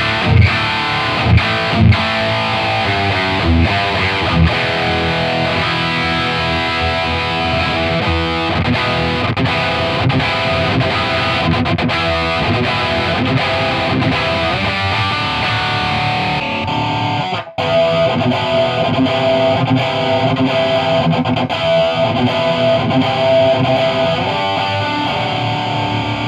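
Heavily distorted electric guitar played through an aged Marshall 1960A 4x12 cabinet loaded with Celestion G12T-75 speakers: palm-muted chugs and open chords. About seventeen seconds in, the sound drops out for an instant and cuts to the same riffing through the new 1960A cabinet, heard on the room microphone.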